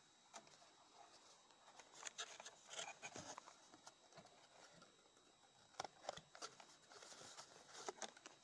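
Faint rustling and light clicks of a cardboard kit box and its paper leaflets being handled, in two short spells.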